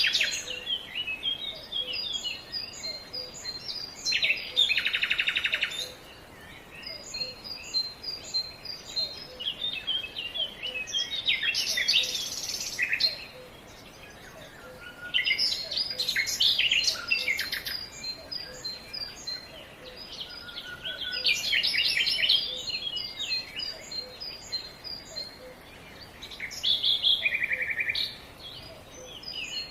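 A mix of songbirds singing: quick high chirps and whistles overlap, broken every few seconds by rapid buzzy trills, with short quieter gaps between the bursts of song.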